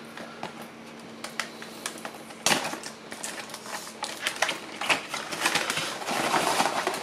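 Cardboard mouse box handled in the hands: small scratches and taps as its seal stickers are picked and peeled off, one sharp knock about two and a half seconds in, and denser rustling and scraping of the cardboard near the end.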